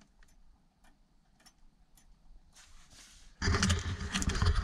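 A few faint clicks in near quiet, then, about three and a half seconds in, loud rustling and bumping from a handheld camera being swung around.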